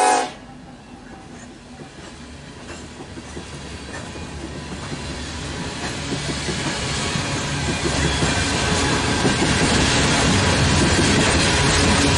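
A locomotive horn cuts off right at the start. Then open-top coal hopper cars roll past: a rumble and rattle of steel wheels on rail that grows steadily louder.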